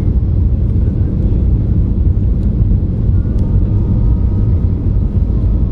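Cabin noise of a Boeing 737-800 on final approach, with gear and flaps down: a steady, loud, low rumble of engines and airflow. A faint high whine joins about three seconds in.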